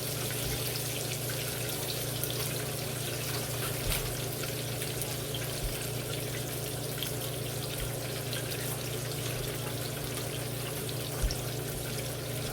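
Marinated milkfish (bangus) frying in hot oil, a steady sizzle with faint scattered crackles. A steady low hum runs underneath.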